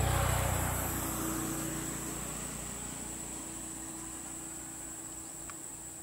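A vehicle passes on the road, its rumble and tyre noise fading away over the first two seconds. Underneath, insects keep up a steady high-pitched drone.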